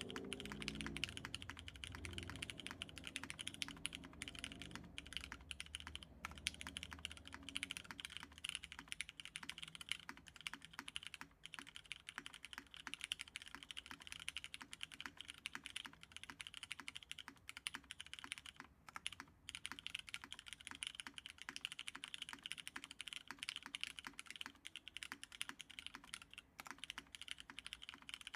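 Continuous fast typing on a Dunkin' 60 custom mechanical keyboard fitted with lubed Cherry MX Nixie linear switches, in an aluminium full plate on an o-ring friction-fit mount. The keystrokes run densely together with only a few brief pauses.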